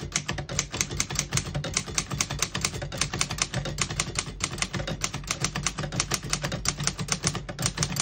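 1956 Underwood Universal portable typewriter being typed on at a steady pace: a fast, even run of typebar strikes against the platen, about seven a second.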